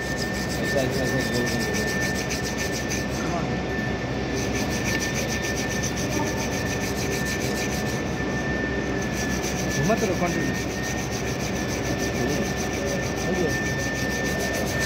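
A flat hand-held block rubbed back and forth on a steel pipe weld, over steady workshop machine noise with a constant high-pitched whine.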